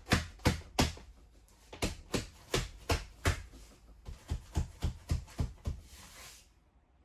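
A plywood wall panel being knocked into place with a run of sharp taps, about two to three a second, with a short pause partway through, stopping about six seconds in.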